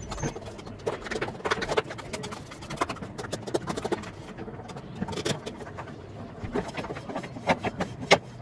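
A metal spoon clinking and scraping against the inside of a stainless steel tumbler as an omelette mixture is beaten in it, in quick irregular taps.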